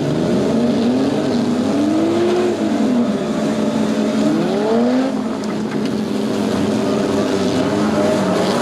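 Several demolition derby cars' engines revving together, their pitches rising and falling over one another.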